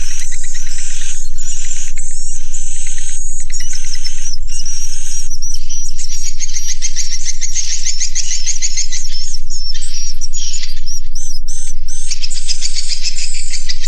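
Edible-nest swiftlets calling inside a swiftlet house: loud, continuous high-pitched chirping in rapid trills, many birds at once, over a steady low mains hum.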